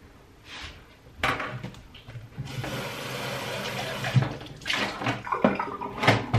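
Kitchen tap running into a sink while a ceramic mug is rinsed, with knocks and clinks of the mug against the sink toward the end.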